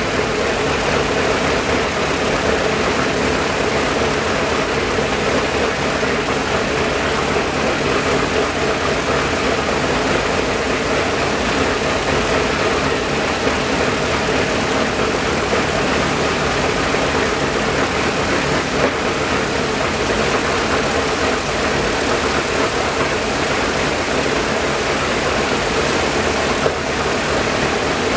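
Shvetsov ASh-82T fourteen-cylinder twin-row radial engine of an Ilyushin Il-14T running steadily on the ground, its propeller turning.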